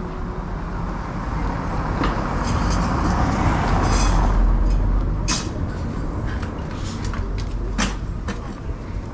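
A passing motor vehicle: a deep rumble and rushing noise that swells to a peak about four seconds in and then fades, with a few sharp clicks later on.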